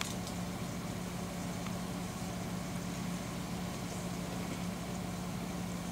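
Steady low machine hum, one constant tone over a faint even hiss.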